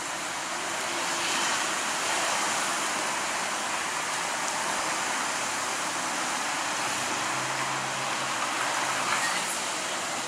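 Steady hiss of road traffic from a busy street, with a low vehicle engine hum rising out of it for a second or so about seven seconds in.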